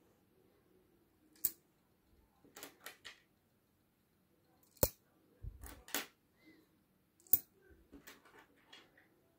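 Coins dropped one by one into a floating aluminium-foil boat already full of coins, each landing with a sharp metallic clink. About a dozen clinks come at irregular intervals, the loudest about five and seven seconds in.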